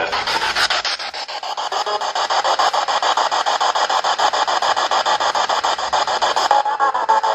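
Loud, choppy hissing static that pulses rapidly and evenly, in which the words "death" and "die" are claimed to be heard.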